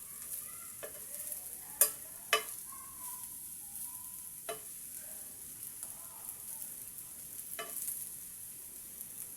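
Fish frying in oil in a frying pan, a steady sizzle. A few sharp clinks break through it, the two loudest about two seconds in.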